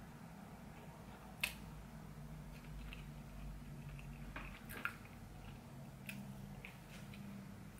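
Quiet chewing of a bite of cheeseburger, with a few short wet mouth clicks and smacks, the sharpest about a second and a half in, over a faint steady room hum.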